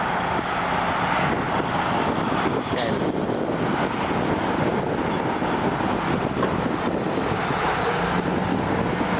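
Steady rushing noise of road traffic and wind, with a faint low engine hum near the start and again near the end.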